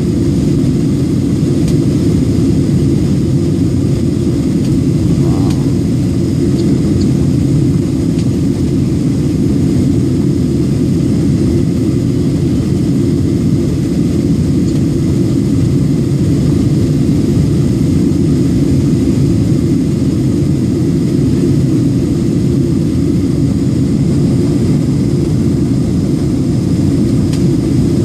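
Steady cabin noise of a Southwest Boeing 737 jet airliner during descent: jet engines and airflow heard from inside the cabin as an even, loud low rumble with a fainter hiss above it.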